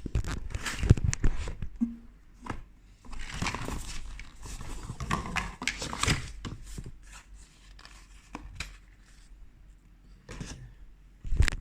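Handling noises of a small plastic bike computer and its packaging: irregular clicks, knocks and short rustles as it is worked with both hands, with a sharp knock about a second in.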